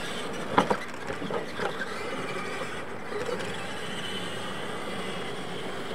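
Electric RC monster trucks racing on dirt: a steady high motor whine with tyre and gear noise, growing stronger in the second half. A couple of sharp knocks about half a second in.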